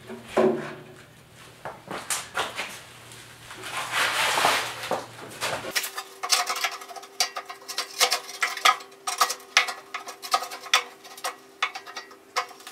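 Metal clinking, tapping and scraping as a stainless steel double burner is worked into place in a barbecue's sheet-metal firebox, with a scraping rustle about four seconds in and a run of quick rattling taps through the second half.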